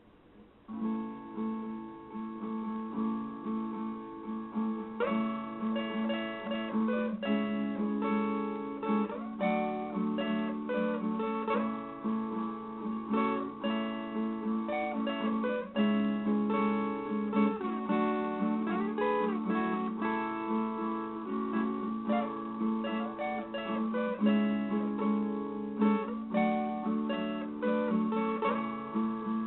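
Solo viola caipira, the Brazilian ten-string folk guitar, playing a slow instrumental melody of plucked notes over a ringing low drone note, with a few sliding notes. It begins about a second in.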